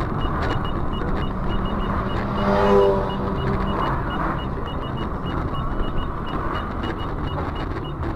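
Car driving noise picked up by a dashcam: steady engine and road rumble, a faint high beep repeating a few times a second, and a short pitched tone about two and a half seconds in.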